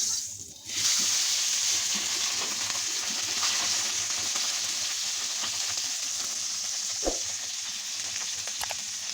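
Hilsa fish frying in hot oil in a pan: a steady sizzle with a few sharp pops of spattering oil. The sizzle drops briefly within the first second, then comes back.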